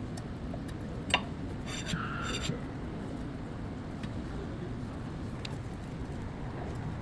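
Steady low rumble of a car, with a sharp click about a second in and a brief pitched sound around two seconds.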